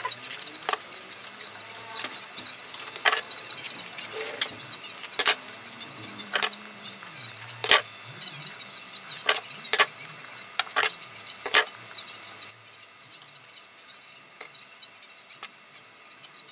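About a dozen irregular sharp clicks and knocks of small objects being handled on a workbench, thinning out after about twelve seconds.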